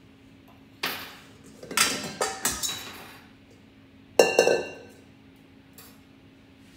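Kitchenware clattering as it is handled. There is a knock about a second in, then a quick run of clinks and knocks around two seconds in, then a louder clank with a short metallic ring a little past four seconds.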